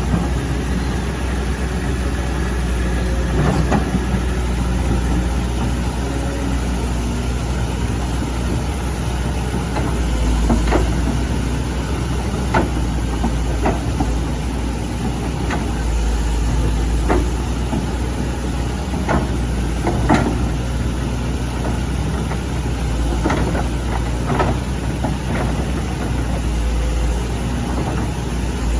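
Excavator's diesel engine running steadily under load, with sharp clanks and knocks every few seconds as it digs.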